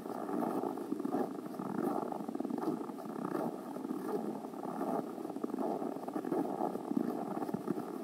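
Footsteps crunching in frozen snow at walking pace, about one and a half steps a second, heard muffled over a steady rustle.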